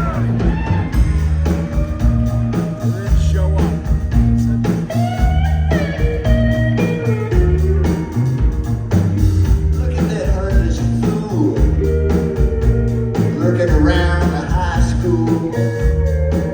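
Rock band playing live with a blues feel: a steady drum beat and heavy bass under electric guitar lines that bend and slide in pitch.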